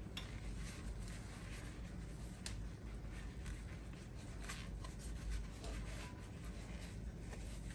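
Paper towel rubbing oil around the inside of a pan to season it: soft scuffing and wiping, with a few light clicks.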